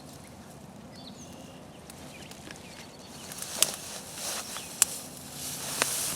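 Footsteps through dry leaf litter, rustling and crunching, with a few sharp snaps about a second apart in the second half. Faint bird chirps in the quieter first half.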